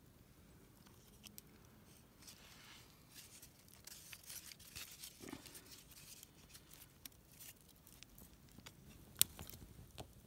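Faint crackling and snapping of small feather sticks and kindling, busiest in the middle, with one sharper snap about nine seconds in.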